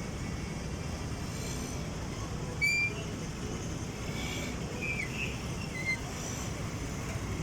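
Motor vehicle running with a steady low rumble, with a few short high-pitched wheel squeals on the new road surface: one about two and a half seconds in, the loudest, and a few more around four to six seconds in.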